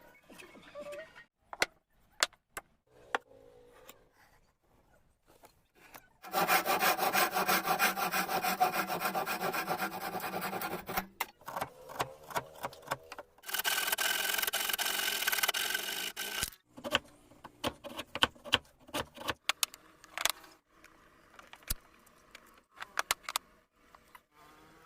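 Wood being sawn in two loud spells, the first about five seconds long and the second about three, with rapid, dense strokes. Scattered sharp taps and knocks of wood come before, between and after them.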